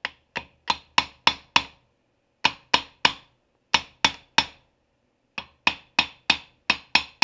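Hammer tapping on the metal parts of a hydraulic cylinder: sharp blows in four quick runs of three to seven, about three a second, with short pauses between the runs.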